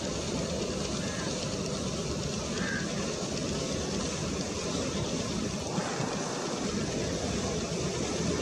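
Steady distant roar of an Airbus A321 jet airliner's engines as it slows on the runway just after touchdown.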